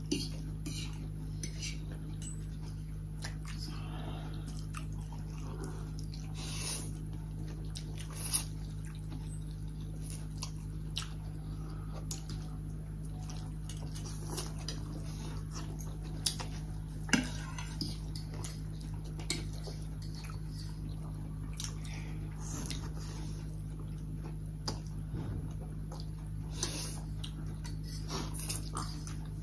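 People eating chow mein noodles and momos with forks: scattered short clinks of forks on plates, chewing and slurping of noodles, over a steady low hum.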